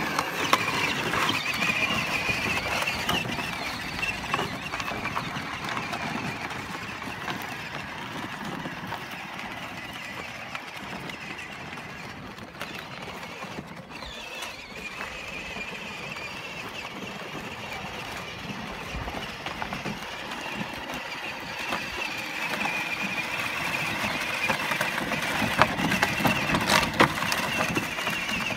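Battery-powered ride-on toy ATV's electric motor whining steadily as it drives, its plastic wheels rolling and crunching over dry dirt. The whine fades as it drives away and grows louder again as it comes back, with a few sharp clicks near the end.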